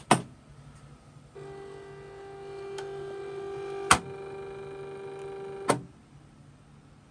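Hornby Dublo motorised indexing turntable: a sharp click, then about a second later its small electric motor starts with a steady hum as the deck turns. A loud click comes about halfway through, and another as the motor stops some four seconds later, the turntable's solenoid-operated latching mechanism working as it indexes.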